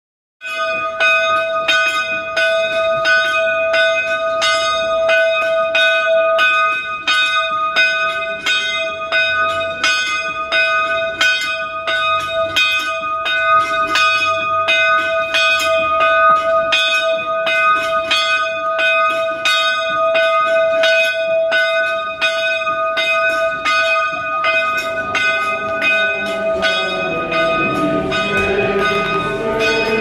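A single church bell rung by rope, struck again and again in a quick, even rhythm, its ringing tone sustained between strokes. Near the end, lower sustained tones of the pipe organ start to come in under it.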